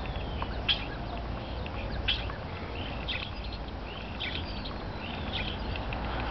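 Starlings calling: five short high-pitched calls, about one a second, over a steady low background rumble.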